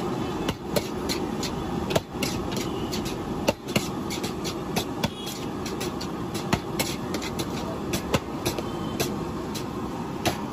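Metal spatula knocking and scraping against a large steel kadai as fried rice is stirred and tossed, in sharp irregular clanks about a second apart, over a steady low background rumble.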